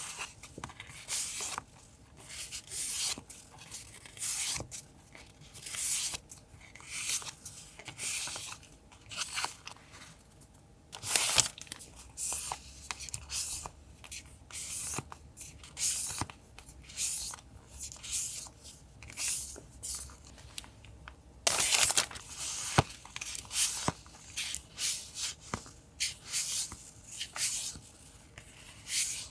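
Paper stationery and its packaging handled close to the microphone: a string of short rustles and tearing sounds, with longer tears about eleven seconds in and again around twenty-two seconds, and a few light taps.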